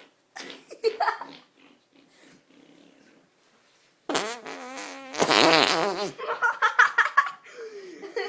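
A child blowing a loud mouth fart, a fake fart noise made with the lips, starting about four seconds in and lasting about two seconds, raspiest near its end.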